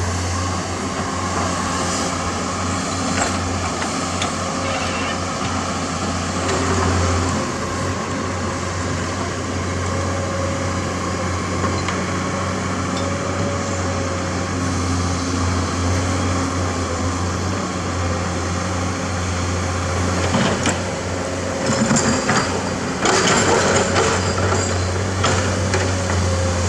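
Komatsu PC200 excavator's diesel engine running steadily under hydraulic load as it digs and swings, its pitch wavering slightly. Near the end come louder irregular clattering and scraping noises.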